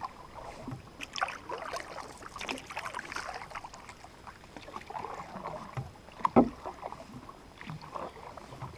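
Canoe paddling: irregular splashing and dripping of water from paddle strokes, with one sharp knock, the loudest sound, about six and a half seconds in.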